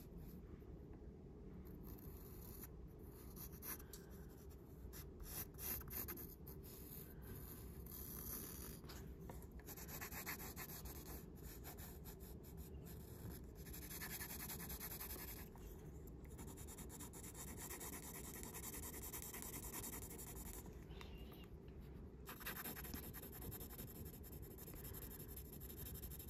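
Graphite pencil shading on paper: faint, steady scratching strokes in stretches, with brief pauses between them.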